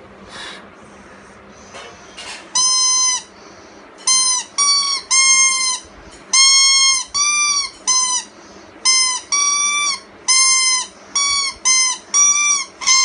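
A child sounding a high-pitched instrument in about fifteen short toots from about two and a half seconds in, on one or two close notes, each note bending slightly at its start and end.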